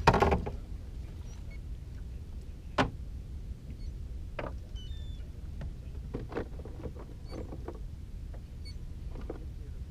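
Scattered knocks and clicks of fishing tackle and caught perch being handled against a small boat's hull, over a steady low rumble. A louder brief sound comes right at the start and a sharp click about three seconds in.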